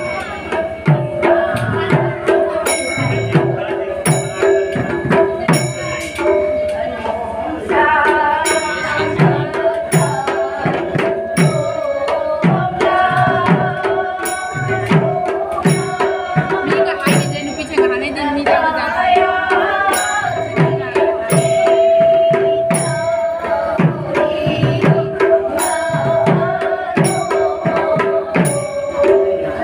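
Devotional arati music: a drum beaten in a steady rhythm about twice a second, with short ringing strikes and steady held tones. A melodic line moves over the top for a stretch in the middle.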